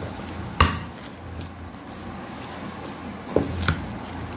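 Hand kneading soft, sticky parotta dough in a bowl: dull thumps as the dough is pressed and slapped down, one about half a second in and two close together near the end.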